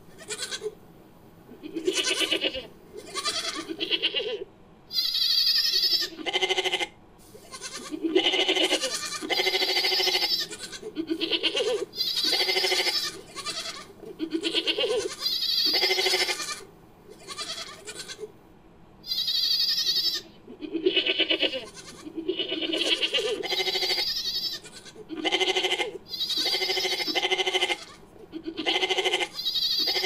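Goat and ibex bleats strung together as a creature's calls: a long series of short, wavering bleats, one after another with brief gaps.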